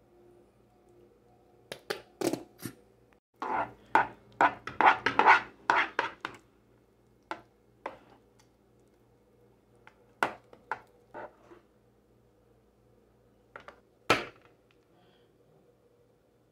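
Metal spoon stirring thick batter in a saucepan, clinking and scraping against the pan in a quick run of strokes, then scattered knocks as the stirring and scooping go on.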